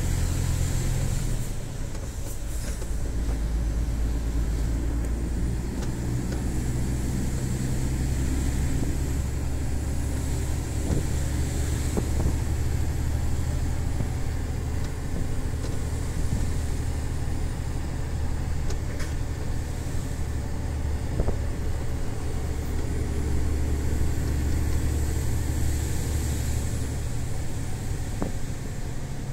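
MAN TGS 18.400 truck's six-cylinder diesel engine pulling steadily while driving, heard from inside the cab as a low drone with road noise. The engine note dips and changes about two seconds in, and shifts again near the end.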